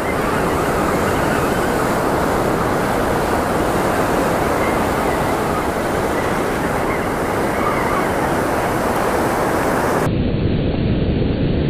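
Ocean surf washing around the feet in a steady, loud rush, mixed with wind buffeting the microphone.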